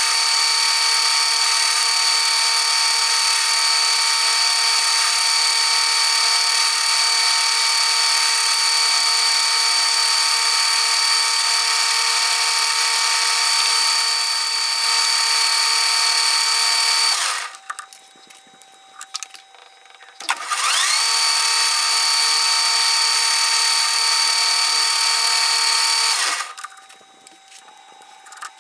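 Metal lathe running with a steady high whine while it spins a steel shaft. It stops about seventeen seconds in, spins up again with a rising whine a few seconds later, and stops again near the end.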